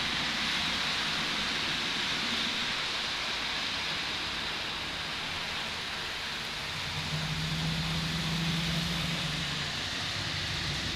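N gauge model trains running on the layout track: a steady hiss of small metal wheels rolling on the rails. About seven seconds in, a low motor hum joins it as the electric locomotive passes close, fading again near the end.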